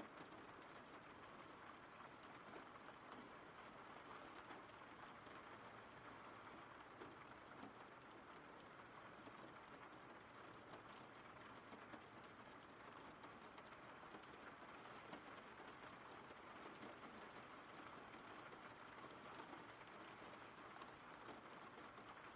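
Steady rain falling, faint, an even hiss with scattered ticks of individual drops.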